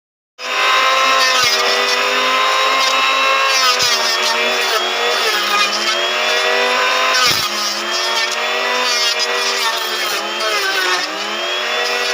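Small electric mini jointer running with a steady whine, its pitch sagging and recovering twice as it takes load, with a few sharp knocks in between.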